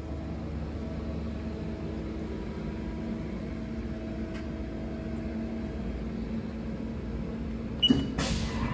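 Haas ST-20Y CNC lathe humming steadily at idle, a hum with several constant tones. Near the end the Cycle Start button is pressed: a short high beep, then a rush of noise as the machining cycle and coolant start.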